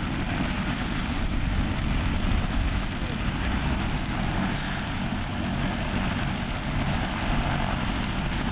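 Single-engine turbine helicopter running on the ground with its main rotor turning: a steady high turbine whine over rushing rotor noise and a low rumble, unchanging throughout.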